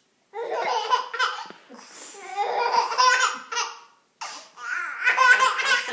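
A baby laughing in three bursts, each a second or so long, with short pauses between.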